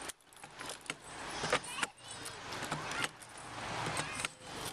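Irregular clicking and rattling of a wooden elephant-riding seat and its fittings, jostling as the elephant walks.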